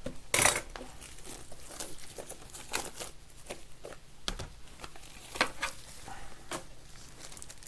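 Plastic pack of penny card sleeves crinkling and rustling as it is handled and opened, in a string of short crackles and clicks, the loudest about half a second in.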